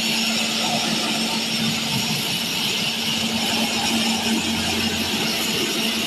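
Strong water jet spraying against an air-conditioner condenser coil, a steady hiss of spray hitting the aluminium fins, with a steady low hum underneath.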